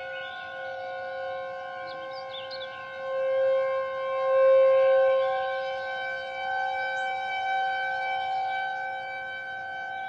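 Federal Signal outdoor warning siren sounding a steady alert tone, several pitches at once with no rise or fall in pitch. It swells louder about three seconds in and eases back after about five seconds.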